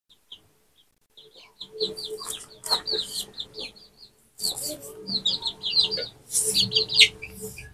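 Chickens peeping in quick runs of short, high, downward-sliding chirps. Brief scratchy noises come in between as the skin is stripped from a water lily stem by hand.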